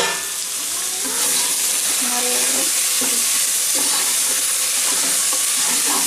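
Chopped tomatoes and onions frying in ghee and oil with a steady sizzle as they are sautéed for a masala base.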